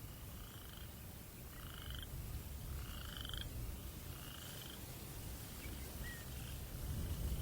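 Night ambience: a steady low wind rumble under short, buzzy animal calls repeating about once a second. The wind swells near the end.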